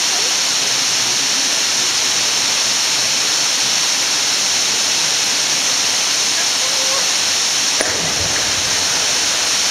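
A waterfall rushes steadily into a rock-walled pool. About eight seconds in, a person jumping from the rocks hits the water with a splash.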